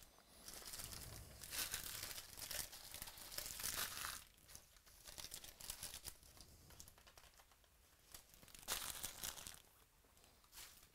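Plastic foil trading-card pack wrappers crinkling as they are handled and torn open, in bursts over the first four seconds and again briefly near the end.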